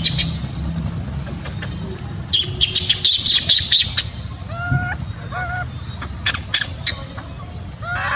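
Monkeys calling: a run of sharp, high squeals about two seconds in, then two short calls that rise and fall in pitch, and more squeals later, over a steady low background hum.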